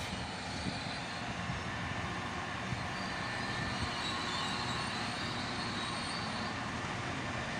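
Steady noise of trains moving through the station, with a diesel freight locomotive's engine running underneath.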